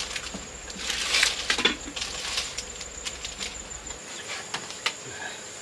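Crinkling and rustling of a flower bouquet's clear plastic wrapping as it is handled and set down, loudest about a second in, then thinning to scattered light crackles. A faint steady high tone runs underneath.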